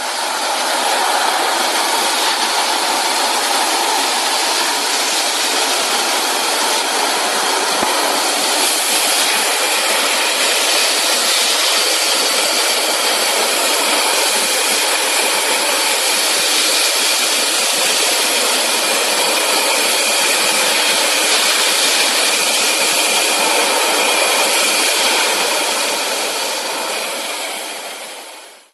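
Explosion-proof compressed-air-driven wet/dry vacuum cleaner running: a loud steady rushing hiss that builds up in the first second and dies away near the end.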